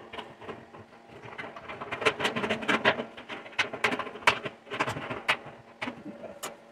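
Tin snips cutting through the thin copper wall of an old hot water cylinder: an irregular run of crisp snipping crunches, several a second, thinning out near the end.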